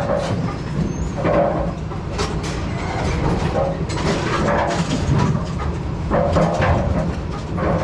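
Bowling pinsetter machinery running: a steady mechanical rumble with irregular clanking and clattering.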